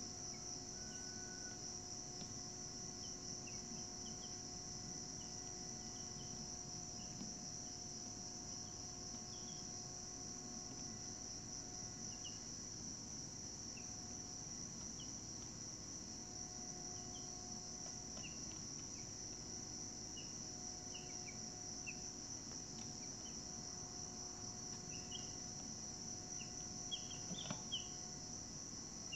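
Steady high-pitched insect chorus, with short high chirps scattered over it and a small cluster of them near the end.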